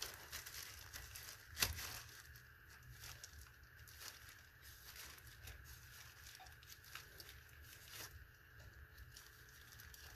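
Faint rustling of a plastic glove and small clicks as fingers tighten a toilet T-bolt and its plastic sleeve at the floor flange, with one sharper click about a second and a half in.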